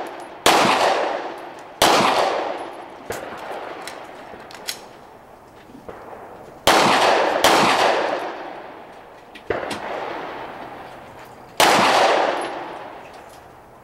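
Pistol shots fired singly at uneven intervals, about six loud ones, each followed by a long echoing tail, with a few fainter sharp cracks between them.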